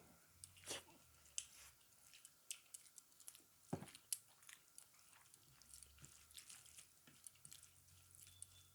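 Quiet close-up sounds of a person chewing and eating rice and dal: soft, irregular wet mouth clicks, with one sharper click about four seconds in.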